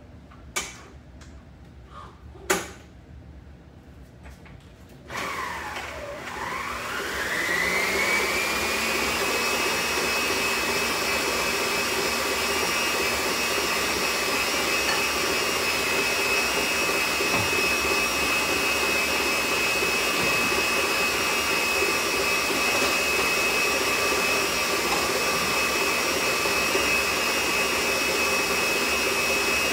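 Electric mixer switched on about five seconds in, its motor whine climbing in pitch over a few seconds and then running steadily at high speed, beating egg whites to stiff peaks. Two sharp knocks come before it starts.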